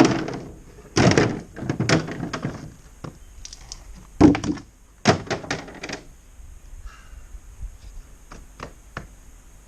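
A series of loud thunks and knocks over the first six seconds or so, then a few light clicks near the end.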